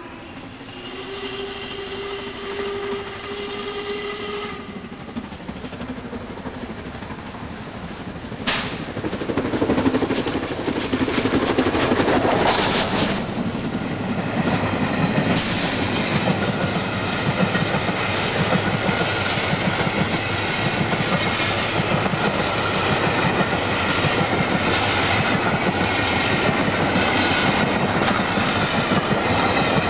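Steam locomotive Duchess of Hamilton, an LMS Coronation Class Pacific, sounds its whistle for about four seconds. The train then runs past close, growing loud about ten seconds in, as the coaches clatter over the rail joints.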